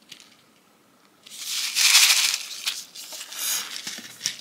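Packaging crinkling and rustling as items are handled. The main crinkle starts just over a second in and lasts about a second and a half, followed by a shorter rustle.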